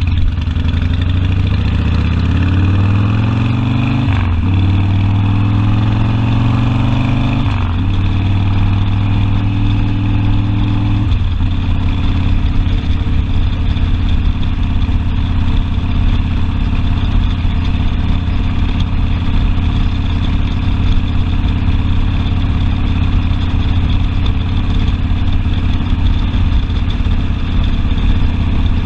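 Harley-Davidson Sportster V-twin motorcycle engine accelerating through the gears: its pitch rises, drops at an upshift about four seconds in, rises again and drops at a second upshift near seven and a half seconds. After about eleven seconds it settles into a steady low rumble at cruising speed.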